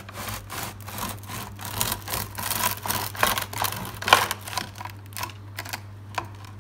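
Serrated bread knife sawing through the crust and crumb of a freshly baked siyez sourdough loaf, rasping strokes a few times a second. About four seconds in the slice comes free, with a sharp knock on the wooden bread board, then a few light clicks.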